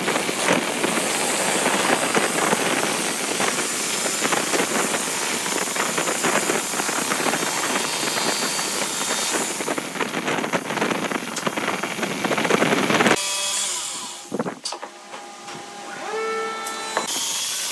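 Electric jigsaw cutting curves through a thick wooden tabletop, the reciprocating blade rasping steadily. It cuts off abruptly about 13 seconds in.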